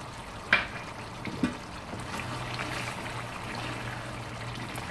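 Chicken in black-pepper gravy sizzling and bubbling in a frying pan on a gas stove: a steady hiss. Two short sharp clicks about half a second and a second and a half in, and a wooden spoon stirring the pan near the end.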